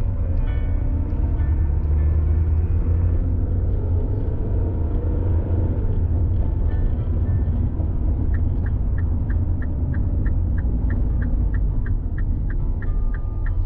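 Steady low rumble of a running vehicle, with a light rapid ticking, about three ticks a second, in the second half.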